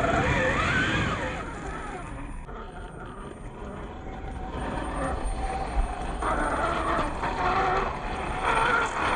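RC scale Jeep Cherokee's electric motor and gears whining in spurts as it is driven over rough ground, pitch rising and falling with the throttle. It eases off about two seconds in and picks up again after about four seconds.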